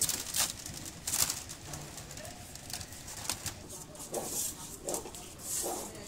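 Thin bamboo strips clicking and rattling against each other as they are woven and tucked into a basket. From about four seconds in, a pigeon coos a few times in the background.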